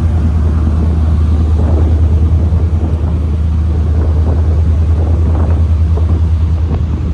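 Ferry engine running under way, a loud, steady deep drone with a fast even throb, with a rushing noise of wind and water over it.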